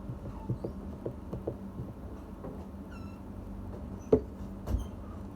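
Light clicks and taps of plastic Play-Doh tools handled on a tabletop, with two sharper knocks about four and five seconds in. A brief high squeak comes about three seconds in.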